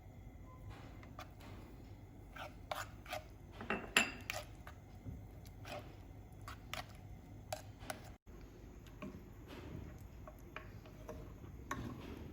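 Faint, scattered clinks and taps of a spoon against dishes, the loudest about four seconds in.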